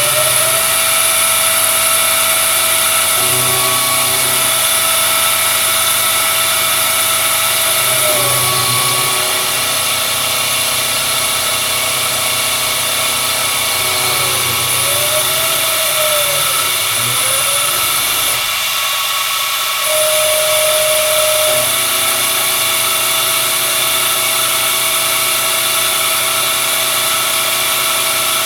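Optimum BF20 milling machine converted to CNC, running under stepper-motor drive: a steady mechanical whir with a motor whine that several times drops in pitch and rises again as the axes slow, change direction and speed up.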